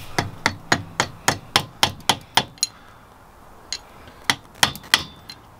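Hammer tapping a metal drift to drive the gudgeon pin through a VW Beetle engine's piston and into its connecting rod: a quick run of about a dozen sharp metallic taps, about four a second, then a short pause and four more taps.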